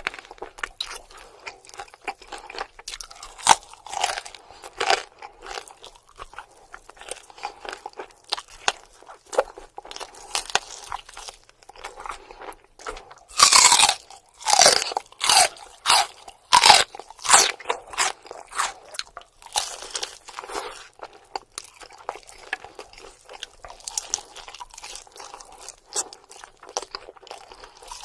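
Crispy spicy buffalo chicken wings bitten and chewed close to the microphone: irregular crunches, with a louder run of crunchy bites in the middle.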